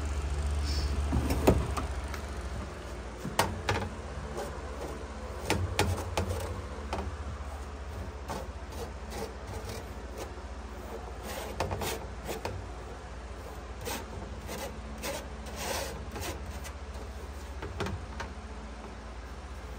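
A bulky comforter is pushed into a dryer drum, with a thump about one and a half seconds in. Then fingers rub and scrape lint off the dryer's mesh lint screen, making scattered light scrapes and clicks over a low steady hum.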